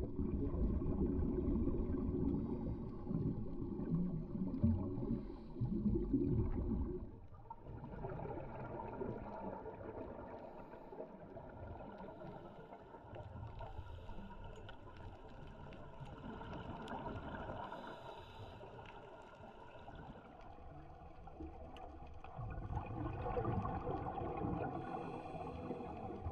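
Muffled underwater sound through a GoPro housing: a scuba diver's regulator breathing and exhaled bubbles gurgling. For the first seven seconds it is a loud, dull rumble. Then it drops to a quieter, hissier bubbling that swells and fades in slow waves, louder again near the end.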